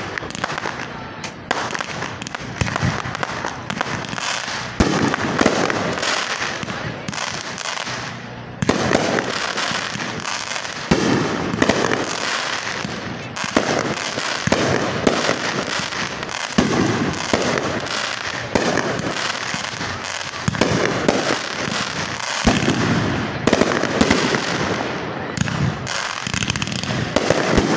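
Aerial fireworks shells bursting one after another in a dense barrage of sharp bangs, with crackling between the bursts.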